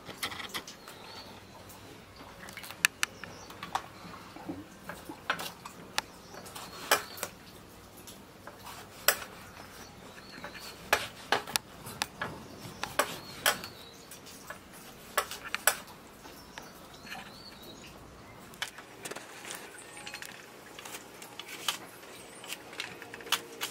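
Small eggplants being sliced on a boti's fixed curved blade, the pieces dropped into a plastic tub of water: irregular sharp clicks and taps of cutting and handling. Faint bird chirps a few times in the background.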